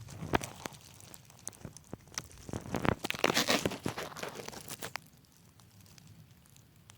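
Crackling and crinkling handling noise from the camera being moved around by hand, not from the ants. Dense clicks and crackles for the first five seconds or so, thickest just past the middle, then dying down to a faint hiss.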